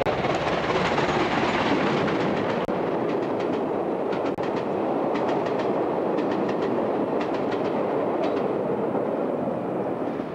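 A steam-hauled train of coaches running past: a steady rumble, with the coach wheels clicking over rail joints in quick groups from about three seconds in.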